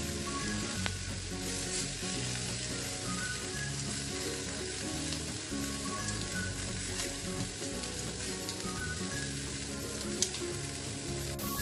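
Shrimp sizzling on a hot sizzling plate: a steady frying crackle with an occasional sharp pop, the shrimp just about cooked through.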